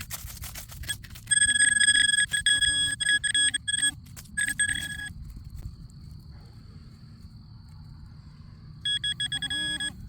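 Metal detector beeping in fast pulsing bursts, three times, as it sounds off on a target in the dig hole. Scraping of soil and tools on the ground comes before the first burst.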